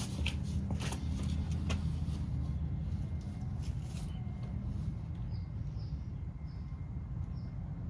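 Light clicks and taps of washers and nuts being fitted by hand over a steady low rumble, then a run of short high chirps, about one every half second, from about five seconds in.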